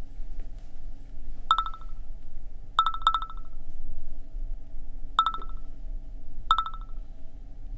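Smartphone message notification chimes: five short ringing trills, two of them back to back, each marking an incoming text message.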